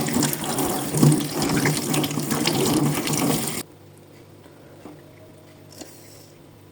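Water running hard in a washing machine, a loud steady rush over a low hum, which cuts off abruptly about three and a half seconds in, leaving only a faint hum.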